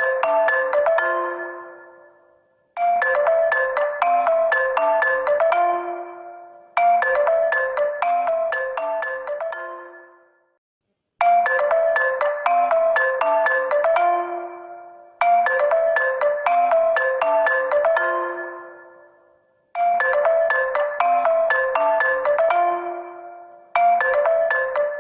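HONOR phone ringtone playing on a loop: a short, bright melody of distinct notes repeats about every four seconds, each time fading out before a brief gap and starting again.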